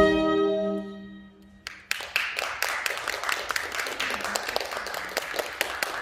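A saxophone ensemble's final chord is held and dies away over the first second and a half. About two seconds in, scattered clapping starts and keeps going.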